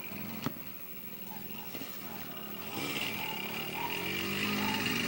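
Fireworks bursting high overhead from a fogueteiro balloon's firework rack: a sharp bang about half a second in, then a louder, steady hissing wash over the last two seconds.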